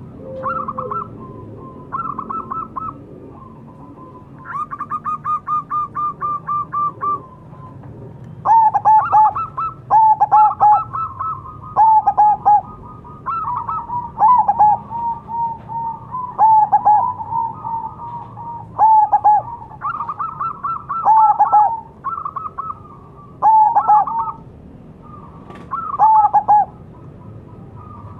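Zebra dove (perkutut) singing its clipped, staccato cooing song. A quick run of short notes comes about five seconds in. From about eight seconds in, loud phrases of hooked coo notes repeat every second or two.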